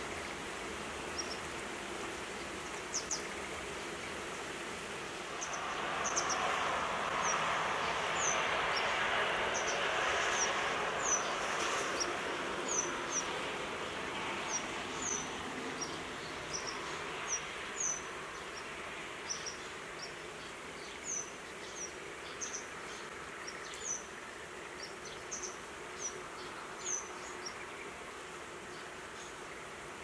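Short, high, thin bird chirps, about one or two a second, over a steady hiss of traffic. A vehicle passing on a wet road swells up about five seconds in and fades over the following ten seconds or so.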